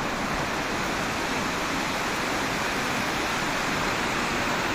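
River water rushing and babbling as a steady, unbroken wash of noise.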